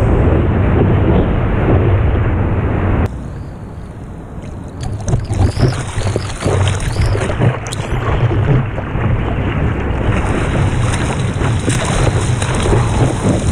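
Broken-wave whitewater rushing loudly over a board-mounted camera, cutting off suddenly about three seconds in. It gives way to uneven splashing and sloshing as hands paddle a surfboard through choppy water.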